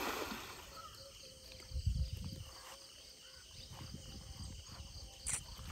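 A cast net's splash on the canal water fades out at the start. After that there is only faint, steady insect chirring, with a few low rumbles and one sharp click near the end.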